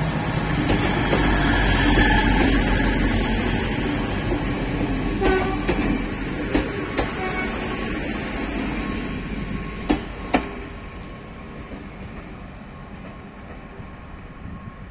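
TÜVASAŞ Anadolu diesel multiple unit (MT 15438 railbus) passing close at low speed, its diesel engine and wheels rumbling, then fading as it draws away. Wheels click over rail joints a few times, with a sharper double click about ten seconds in.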